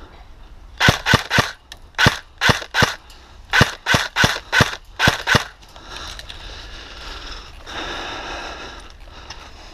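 Airsoft gunfire: about a dozen sharp single shots in quick groups over four and a half seconds, followed by a few seconds of softer rustling noise.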